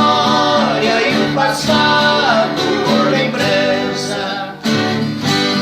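Music: a sertanejo duo singing the song's closing line over acoustic guitar accompaniment. About four and a half seconds in, a strummed chord takes over as the voices end.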